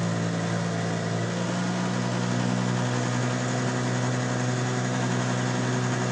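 1964 Evinrude 3 hp Lightwin two-stroke outboard running steadily while pushing a boat at cruising speed, its power head freshly rebuilt with new rings. Its tone shifts slightly about one and a half to two seconds in.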